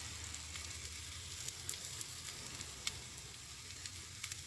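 Egg batter sizzling faintly in a non-stick pot on the stove, a steady hiss with scattered small crackles.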